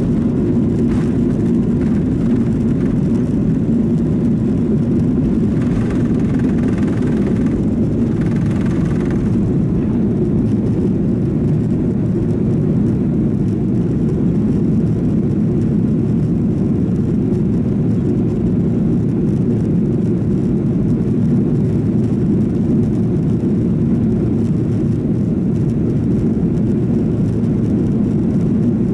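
Boeing 737-800's CFM56-7B jet engines and airflow heard from inside the cabin during takeoff and initial climb: a loud, steady low rush that holds at one level, with a fainter higher sound coming and going about six to nine seconds in.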